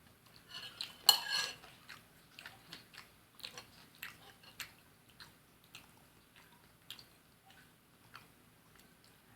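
Someone eating fried fish: chewing and biting, with scattered light clicks and clinks of dishes. The loudest is a brief clatter about a second in.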